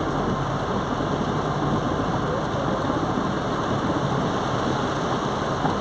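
Heavy rain falling on a car's roof and windscreen, heard from inside the cabin, mixed with the car's engine and tyres rolling on the wet road; a steady, even noise.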